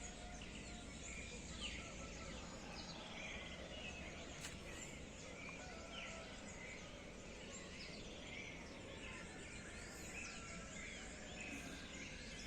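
Dawn chorus of many small birds chirping and singing at once, a dense, faint scatter of short high calls over a low steady background hum.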